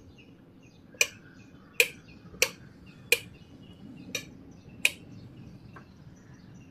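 Sharp clicks of a light switch being flicked, six times at uneven gaps of under a second, as the room lights go off and on to darken the light-dependent resistor and trip the dark sensor. Faint bird chirps sound in the background.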